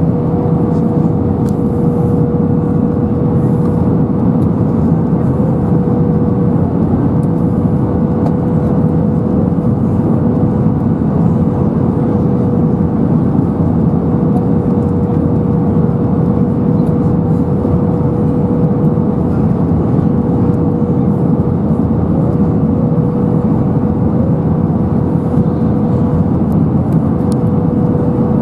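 Cabin noise inside an Airbus A320 descending to land, heard from a window seat over the wing: a steady roar of airflow and its CFM56 engines, with a steady hum running through it.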